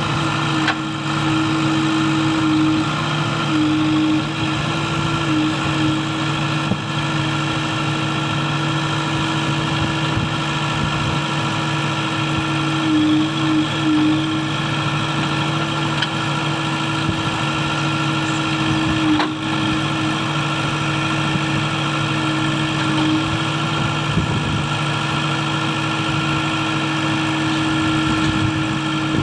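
Heavy diesel engine running steadily at a constant, idle-like speed, giving an even drone.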